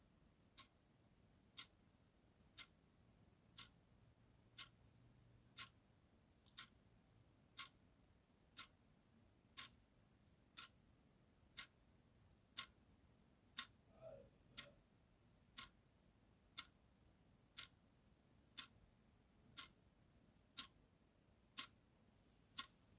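Clock ticking, one faint sharp tick a second, steady and even.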